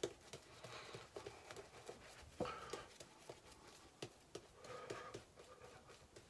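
Shaving brush working lather over a face: faint wet brushing with irregular soft clicks and taps, one sharper tick about halfway through.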